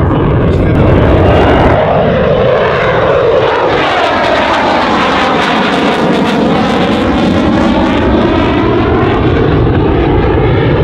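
McDonnell Douglas F/A-18 Hornet's twin jet engines roaring past in a low pass with afterburners lit, a loud continuous roar whose tone sweeps with a phasing whoosh as the jet goes by and then draws away.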